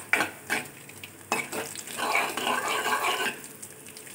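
Urad and chana dal with mustard seeds frying in hot oil in a steel kadai, stirred with a steel ladle: sizzling, with sharp clinks and scrapes of the ladle against the pan. There are a few clinks in the first second and a half, and a busier stretch of stirring and sizzle from about two seconds in.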